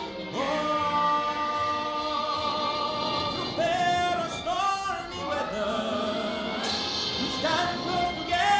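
Music: male voices singing long held notes over a Latin-style band accompaniment.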